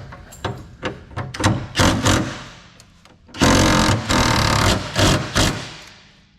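Mechanic's tools on the Mustang's rear suspension: a run of sharp metallic knocks, then a loud burst from a power tool lasting about a second and a half, followed by two or three shorter bursts.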